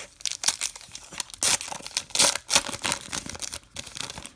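Foil trading card pack being torn open, the wrapper crinkling in a run of short papery rips, the loudest about a second and a half and two seconds in.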